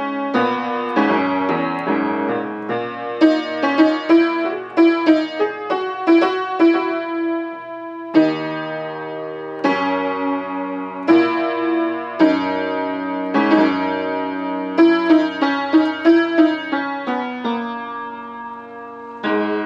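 A piano being played: a simple melody of struck single notes over held low notes, pausing on longer sustained chords about eight, ten and twelve seconds in.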